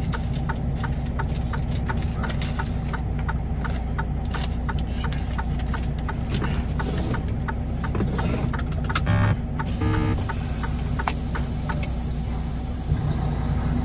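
An engine idling with a steady hum, overlaid by a rapid, even ticking of about three clicks a second that stops about nine and a half seconds in, after which a steady hiss joins the idle.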